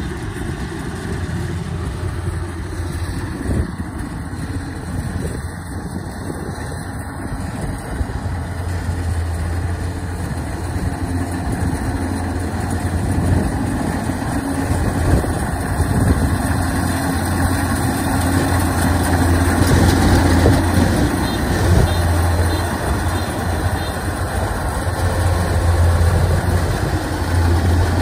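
Kubota DC93 combine harvester running steadily while it cuts rice, its diesel engine and threshing machinery humming and growing gradually louder as it approaches.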